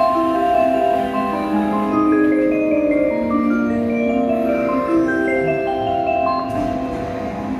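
A melody played in soft mallet-percussion notes, one note after another, at an even loudness.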